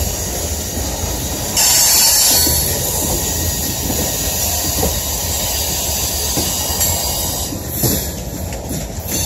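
Loaded coal gondola cars rolling past with a steady rumble of steel wheels on rail, over a high-pitched squeal of wheel flanges rubbing against the rail. The squeal grows louder for about a second, a second and a half in, and a few wheel clicks come later.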